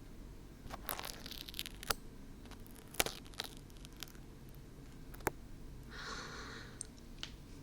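Dried glue being peeled off the silicone ears of a 3Dio binaural microphone: close-up crackling and tearing, with scattered sharp clicks.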